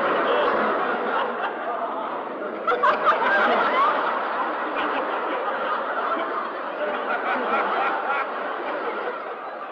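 Several people laughing, a continuous mix of chuckles and snickers that gets louder for a moment about three seconds in.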